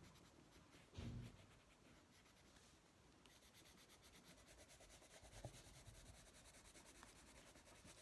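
Faint scratchy rubbing of a Prismacolor coloured pencil shading back and forth on a colouring-book page, in quick even strokes, with a soft low bump about a second in.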